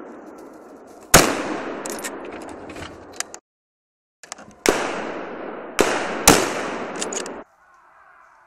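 Four hunting-rifle shots, each with a long echoing tail: one about a second in, then three more in quick succession between about four and a half and six and a half seconds in.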